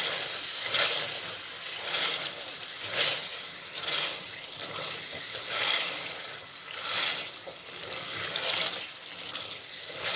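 Spice and onion paste sizzling in a metal saucepan as it is fried down (bhuna), while a plastic masher presses and scrapes through it about once a second.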